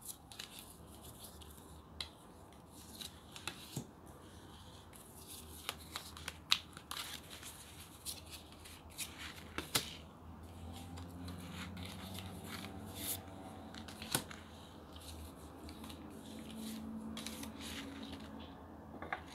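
Tarot cards being shuffled and dealt by hand onto a wooden table: soft rustles and flicks with scattered sharp card snaps and taps.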